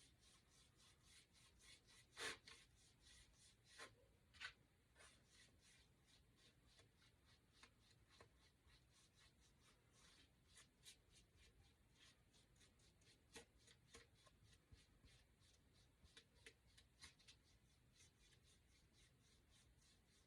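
Faint, quick strokes of paint being applied to a small wooden cutout, a few strokes a second, with an occasional louder tap, the loudest about two seconds in.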